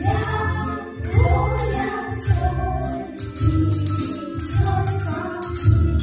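Children's colour-coded handbells ringing in time with recorded backing music that has a steady beat, with bell strokes coming about once a second.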